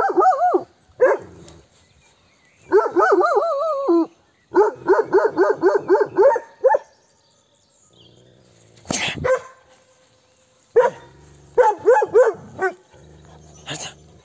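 Kangal shepherd dog barking in quick runs of several barks, with one drawn-out wavering bay about three seconds in. The dogs are on edge, and the shepherd suspects a wolf has been prowling nearby.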